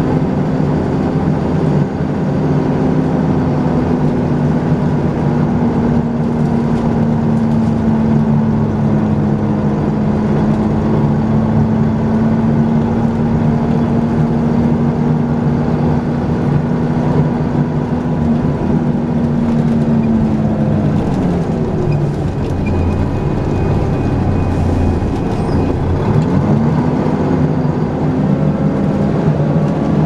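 Volvo B10BLE single-deck bus heard from inside the saloon, its engine running at a steady note under way. About twenty seconds in the engine note falls away as the bus eases off, then rises again a few seconds before the end as it pulls away.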